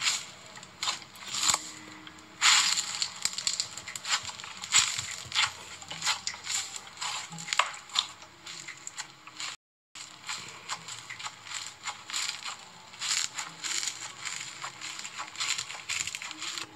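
Rainbow slime squeezed and pressed by hand, giving dense, irregular crackling and popping. The sound cuts out for a moment a little past the middle.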